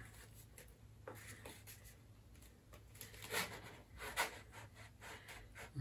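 Faint rubbing and a few light taps of foam parts as a model sailplane's horizontal stabilizer is slid into and centred in its fuselage slot, over a low steady hum.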